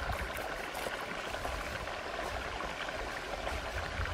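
Shallow stream water running steadily over rocks, with a few faint taps of a knife on a wooden cutting board.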